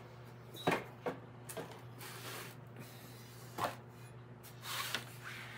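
A few knocks and a scraping slide as a Briggs & Stratton vertical-shaft small engine is handled and turned around on a workbench.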